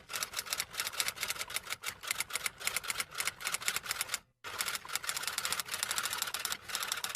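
Rapid typing: a dense run of sharp key clicks, many per second, with a brief pause about four seconds in.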